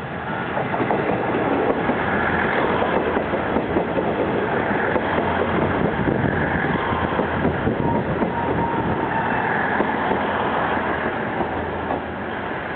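Four-car KiHa 110 series diesel railcar train pulling into a station: wheels rumble and clatter over the rails, with a few high squealing tones in between. The sound builds at the start and eases slightly near the end.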